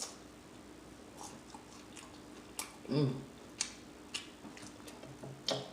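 Close-miked mouth sounds of someone chewing beef and cheese taquitos: scattered soft lip smacks and clicks, with a short hummed vocal sound about three seconds in.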